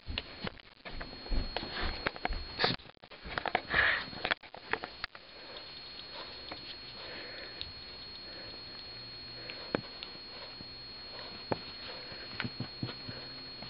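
English springer spaniel sniffing close to the microphone, with scattered clicks and taps; busiest in the first five seconds, then quieter with only occasional ticks.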